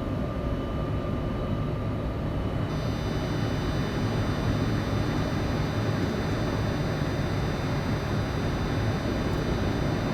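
Steady flight-deck noise of a Boeing 747-400 freighter with its engines idling: a low hum under a hiss of airflow. A few faint, high steady tones join about three seconds in.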